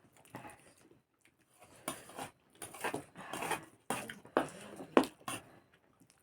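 Eating sounds: curry and rice handled on plates, with irregular small clinks and knocks of dishes, the sharpest about five seconds in.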